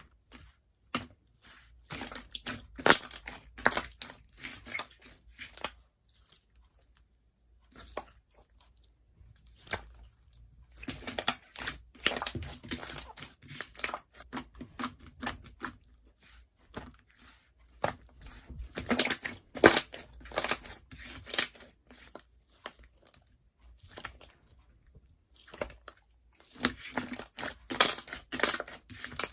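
Slime being squished and pressed by hand, making crackling, popping clicks in bursts of a few seconds with short pauses between.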